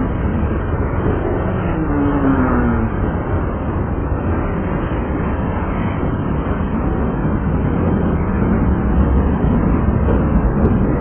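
Canadian Pacific freight train of covered hopper cars rolling past at close range: a loud, steady rumble and rattle of steel wheels on the rails. About two seconds in there is a short falling squeal.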